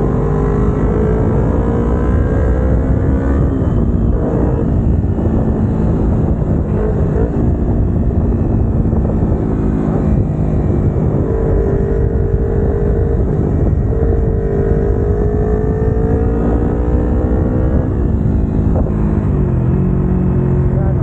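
Kawasaki Ninja 250R's parallel-twin engine running at road speed. It rises in pitch for the first few seconds and dips about four seconds in. It then holds fairly steady with slow rises, and falls in two steps near the end as the bike slows.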